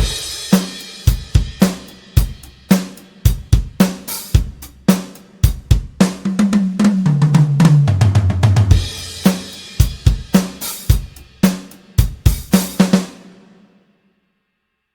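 Sampled acoustic drum kit from the Toontrack EZdrummer 3 plugin playing a groove of kick, snare and cymbals. Midway it plays a fill that steps down in pitch drum by drum, goes back to the beat, then stops about two seconds before the end and its last hits ring out.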